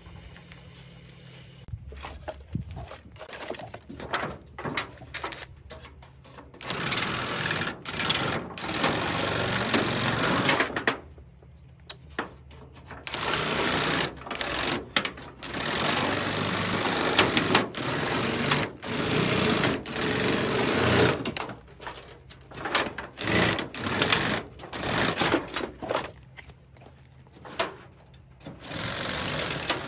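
Electric drill driving a homemade reciprocating sheet-metal shear, cutting corrugated roofing sheet. It runs in bursts of several seconds with short pauses between, the bursts getting shorter in the second half.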